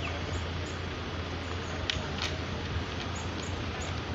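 Street ambience at a city road junction: a steady background wash with a constant low rumble. A few short, high chirps or squeaks stand out, the clearest about two seconds in.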